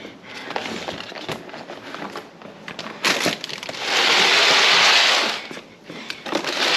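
Plastic food packaging and netted sacks being handled, crinkling and rustling with small crackles. The loudest stretch is a longer rustle about four seconds in, with another near the end.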